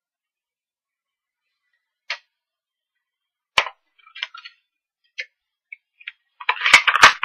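Scattered clicks and light taps of craft tools handled on a desk, an acrylic stamp block and ink pad among them, starting about two seconds in. Near the end comes a loud cluster of clicks and rustles from handling the cardstock.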